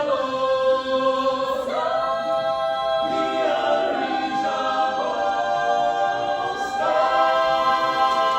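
An a cappella choir singing long held chords in harmony, the chord shifting a few times.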